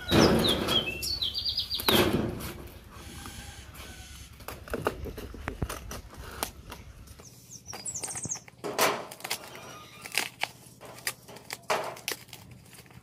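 Cardboard parcel wrapped in packing tape being handled, cut with scissors and torn open. There is loud rustling in the first couple of seconds, then scattered snips, crackles and crinkles. A bird chirps briefly near the start and again about eight seconds in.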